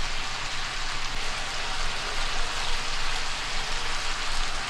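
Chicken thighs sizzling steadily as they brown in hot fat in a frying pan.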